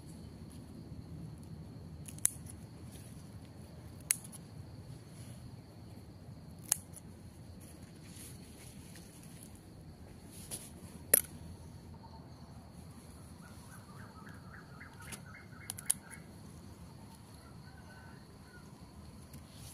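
Scissors snipping through water spinach stems: a handful of sharp snips a few seconds apart, the loudest about eleven seconds in. A steady high insect buzz runs behind, and a short run of rapid chirps comes in about two-thirds of the way through.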